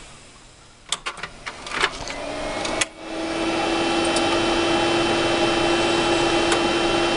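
An old PC being switched on: a few clicks at its front panel, then its cooling fans and its Western Digital Caviar 21200 IDE hard drive spin up. The sound settles about three seconds in into a steady whir with a humming tone that rises briefly and then holds.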